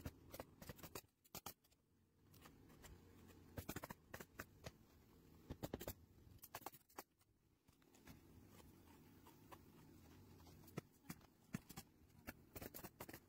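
Faint scattered clicks, taps and scrapes of asphalt shingles being handled and set in place, some coming in short clusters, over a low steady background.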